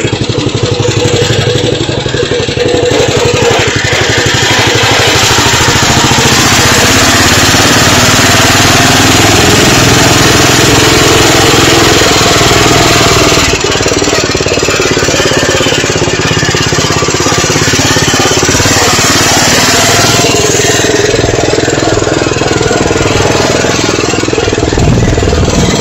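Lawn tractor engine running steadily as the tractor drives along, with the engine note shifting briefly near the end.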